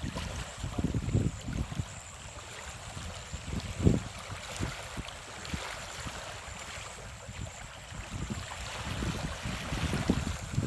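Wind buffeting the microphone in irregular low gusts, one strongest about four seconds in, over small waves lapping on a pebble shore.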